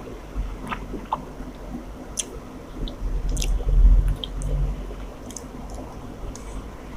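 Close-up chewing of rice and spicy chicken curry: wet, squishy mouth sounds with small clicks and smacks, louder for a moment about three seconds in.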